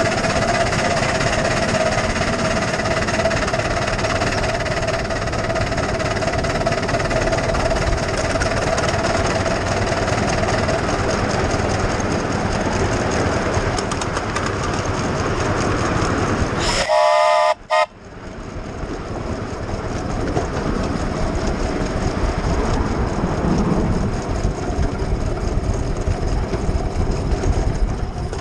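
7¼-inch gauge miniature steam locomotive running along the track, with a continuous rattle and rumble of the ride. About two-thirds of the way through it gives one short whistle blast of about a second.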